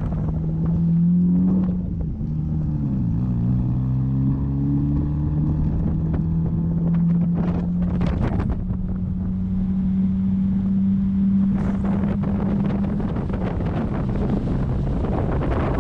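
A motor engine running steadily with wind buffeting the microphone. Its pitch drops about two seconds in and climbs back by around five seconds, then holds.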